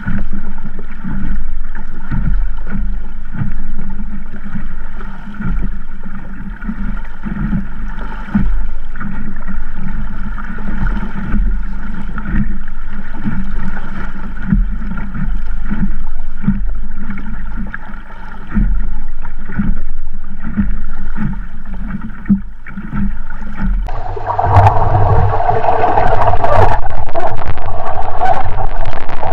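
Wind buffeting the microphone of a camera mounted on a small Sabot sailing dinghy, with choppy water slapping and splashing along the hull in a 10-15 knot breeze. About 24 s in, the noise grows louder and brighter as the boat changes tack and the sail swings across.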